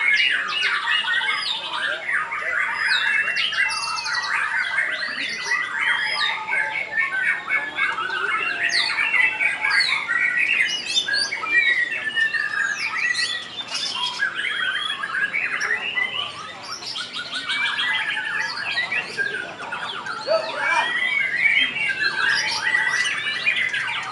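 Several caged white-rumped shamas (murai batu) singing against one another, a dense overlapping mix of whistles, chirps and fast trills with no pause.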